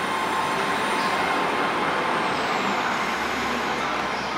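A train running through the station: a steady rumble and hiss, with a faint high whine that slowly falls in pitch midway.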